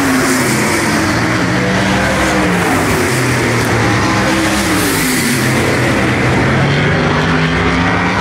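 Supermodified race cars' V8 engines running hard on the oval, their pitch rising and falling as they accelerate and pass through the turns.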